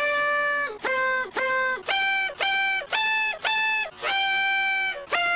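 A tune played on a small white end-blown pipe, like a plastic recorder. It is a run of short, clear notes at about two a second, stepping between a few pitches, with a longer held note at the start and another about four seconds in.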